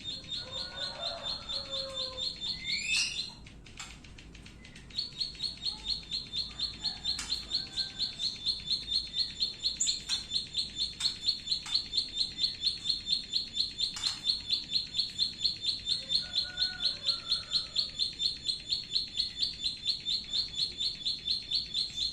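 A small songbird repeating a sharp, high 'klik klik' note about four times a second in a long, even series that breaks off briefly a few seconds in. Softer, lower bird calls sound in the first few seconds.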